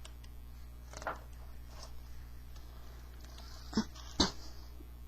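Faint handling noises over a steady low hum: a soft rustle and two sharp clicks near the end.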